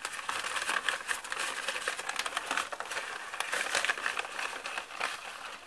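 Newspaper crinkling and rustling as it is unwrapped by hand from a parcel, a continuous run of irregular crackles that eases slightly near the end.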